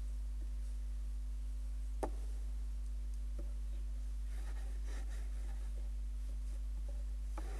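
A steady low electrical hum with a few faint clicks and knocks, the sharpest about two seconds in and another near the end.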